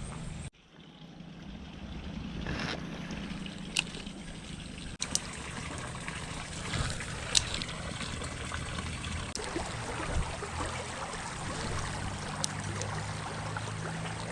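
Creek water running and trickling steadily, with a few sharp ticks. The sound drops out briefly about half a second in and then builds back up.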